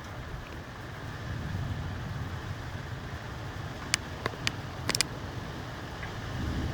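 Low rumble of thunder during a thunderstorm, swelling twice. A quick run of sharp clicks comes about four to five seconds in.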